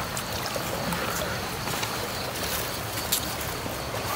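A hooked fish thrashing at the water's surface on a set line, pulling hard and splashing, with a few short sharp splashes over a steady sloshing of water.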